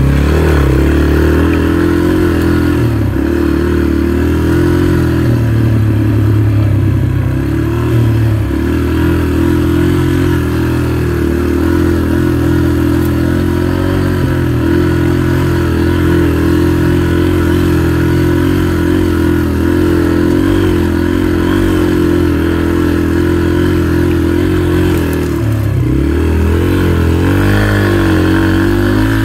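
Dirt bike engine running steadily as the bike is ridden along a dirt trail, its pitch rising and falling with the throttle a few times near the start and again near the end.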